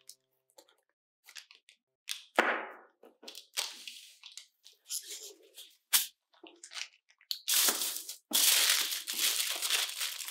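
A metal square cake frame handled on a wooden board with a few clicks and knocks, one sharper than the rest, then aluminium foil crinkled and scrunched as it is pressed and folded around the frame's base, the crinkling dense and continuous through the second half.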